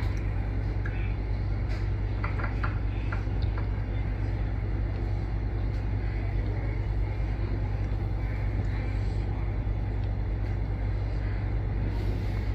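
Steady low rumble, with a few faint light ticks about two to three seconds in.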